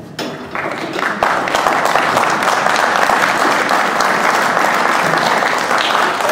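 Audience applauding, with the performers on stage clapping along. It starts about half a second in, swells to full strength a little over a second in, and stays steady.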